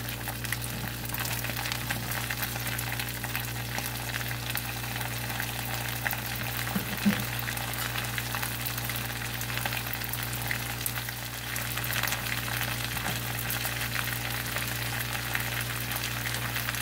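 Yard-long beans sizzling in hot oil in a wok: a steady dense crackle, with a single knock about seven seconds in, over a steady low hum.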